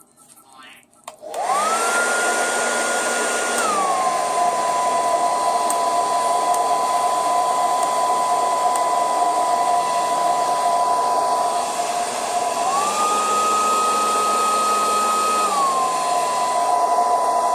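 A 2000 W salon hair dryer (UCW-DR2000) switching on about a second in, then blowing with a steady rush of air and a motor whine. The whine's pitch steps down a couple of seconds after start-up, rises again near the end and drops back as the setting is changed.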